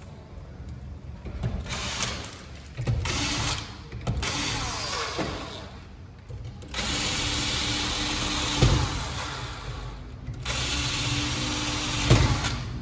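Power tool running in four bursts of a few seconds each, with a steady hum under a hissing, grinding noise, and two sharp knocks between them.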